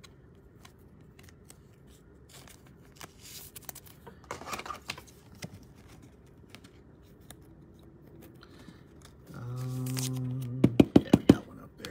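Trading cards being handled: faint sliding and scraping of cards, with scattered light clicks. Near the end a man hums one low note for about a second, then comes a quick run of about six sharp taps, the loudest sounds.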